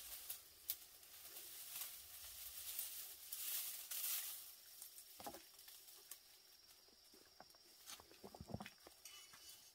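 Faint rustling and crackling of dry stalks being pulled from a leaning bundle and gathered into an armful, strongest in the first half, then a few light snaps and knocks.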